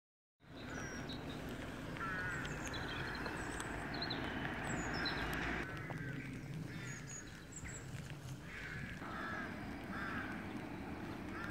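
Birds calling outdoors: repeated short honking or quacking calls, with scattered higher chirps, over a steady low background noise.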